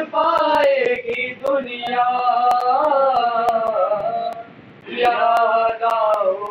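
A man's voice chanting a melodic mourning recitation, holding long wavering notes. It breaks off briefly about four seconds in, then resumes. Faint sharp clicks sound now and then under the voice.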